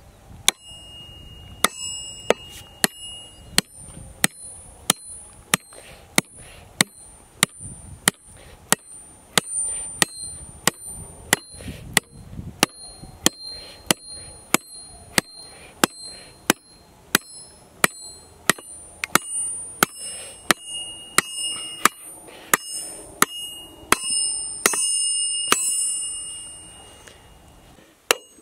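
A hand hammer striking a cast 18K gold railroad spike again and again, about two sharp metallic blows a second, each with a short ringing tone, as the spike is driven into a wooden tie beside a rail.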